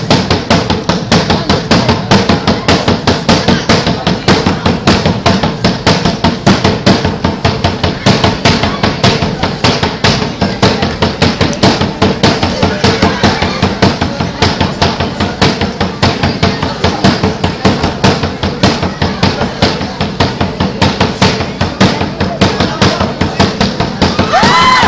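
Cheer dance drumming: fast, steady drum strikes at about four a second, keeping an even beat.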